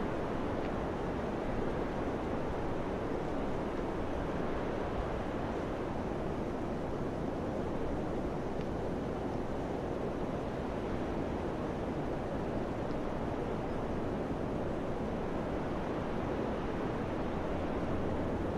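Wind blowing steadily, an even rushing with no gusts or breaks.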